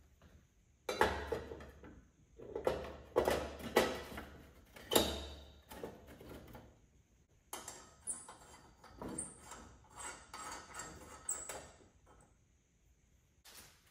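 Metal parts clinking and knocking as they are handled: an irregular run of sharp knocks and clatters, with a few short high pings in the second half.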